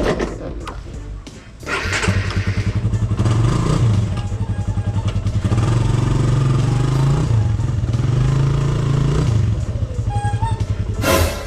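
Suzuki Raider 150's single-cylinder four-stroke engine running as the motorcycle is ridden. It comes in much louder about two seconds in, and its note rises and falls several times with the throttle. A brief loud rush of noise near the end.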